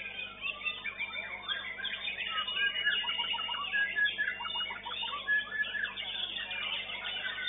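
Many caged competition songbirds singing at once: a dense, overlapping chorus of whistles, trills and chirps with no pause.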